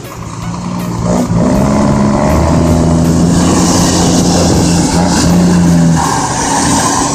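Scania semi-truck's diesel engine with straight-pipe exhaust, pulling hard as it drives up and past: a deep, loud engine note that swells about a second in, holds steady, and changes pitch near the end.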